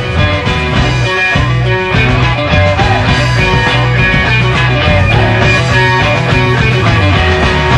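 Loud rock music with electric guitar and a steady beat.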